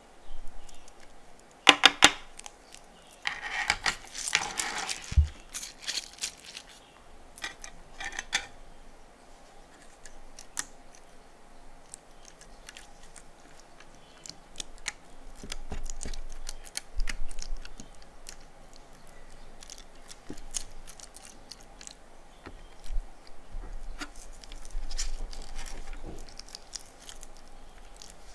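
Fingers working yellow slime into a tray of plastic fuse beads and water beads: beads clicking and rattling against each other and the plastic tray, with sticky crackling of the slime. The clattering is densest in the first five seconds, then turns into scattered clicks and soft crackling.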